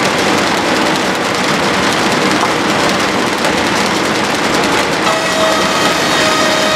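Loud, steady running noise of machinery, with a faint whine joining in about five seconds in.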